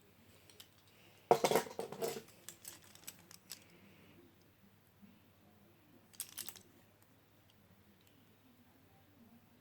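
Small hard objects being handled: a burst of clicks and rattles about a second in, a few scattered clicks after it, and a second short rattle around six seconds in.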